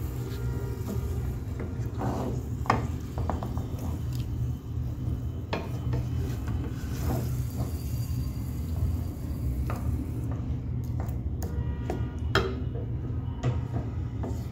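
Wooden spatula stirring and scraping chicken pieces around a metal frying pan, with scattered knocks against the pan, over a steady low hum.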